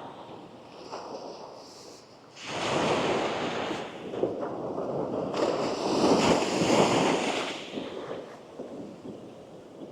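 Sea waves on a sandy beach: a wave breaks and washes in about two and a half seconds in, a loud rushing wash that lasts around five seconds and then fades.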